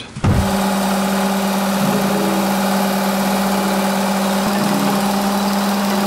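Work Sharp electric knife sharpener running steadily, its motor humming with a grinding hiss as a knife blade is held against the abrasive belt. It comes on suddenly just after the start.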